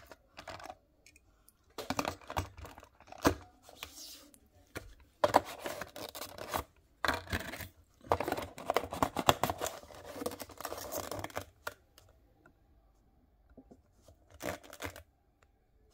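Cardboard box and clear plastic packaging handled: bursts of scraping and rustling as a diecast model is pressed into its plastic tray and the box is worked shut, then a few sharp clicks near the end.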